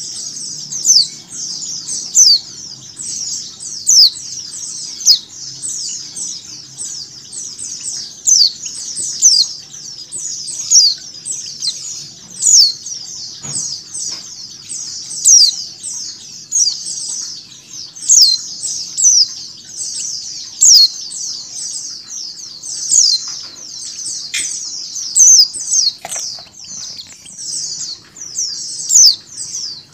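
Many white-eyes (pleci) chirping together: dense, high, downward-sliding chirps without a pause, mixed with a female white-eye's calls, with louder calls standing out about once a second.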